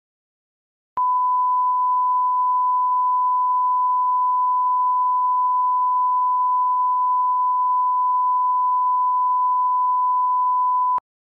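A steady pure test tone, the kind of 1 kHz line-up tone put at the head of a film master. It starts suddenly about a second in, holds at one pitch and level for about ten seconds, and cuts off suddenly.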